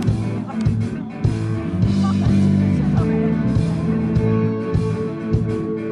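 Live pop-rock band playing an instrumental intro: electric bass and guitar over a steady drum beat, with no vocals yet.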